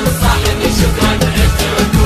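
Music with a steady beat: bass and percussion.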